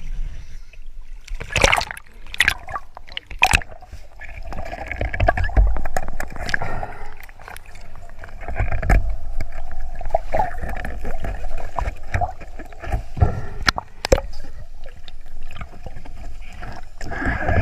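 Splashing and gurgling water, with several sharp knocks in the first few seconds.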